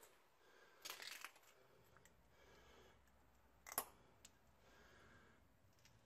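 Near silence: quiet room tone, broken by a short rustle about a second in and one sharp click a little before four seconds in.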